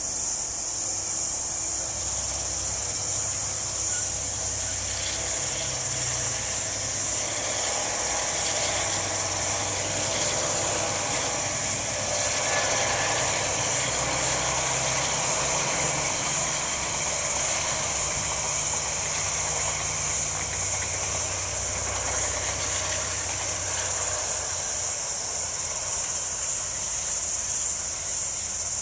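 Diesel locomotive hauling a passenger train, its engine a low hum that builds from about five seconds in, is loudest in the middle and fades near the end. A steady high-pitched insect drone runs throughout.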